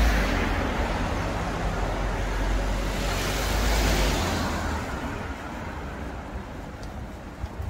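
Road traffic: a car passes close by, its engine and tyre noise swelling and then fading away about halfway through.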